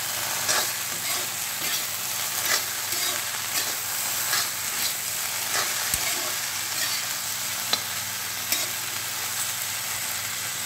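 Okra and chopped onion sizzling in mustard oil in a pan as they are stir-fried, the spatula scraping and tapping against the pan about once a second.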